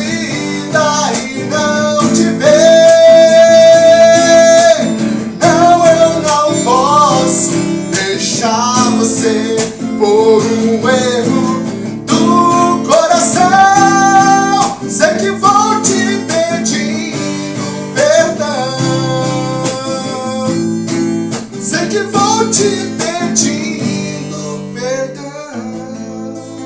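Music: strummed acoustic guitar and band backing under a melodic lead line of held, bending notes, fading down near the end as the song closes.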